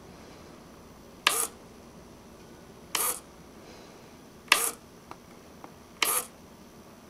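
Four short, sharp bursts about a second and a half apart from a Tamiya 1/16 King Tiger RC tank as its remote-switched machine gun is triggered, with a couple of faint clicks between them.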